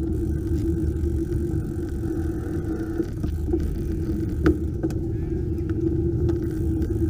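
Steady low rumble with a constant hum: the riding noise of a bicycle rolling slowly along the path. There is one sharp knock about four and a half seconds in.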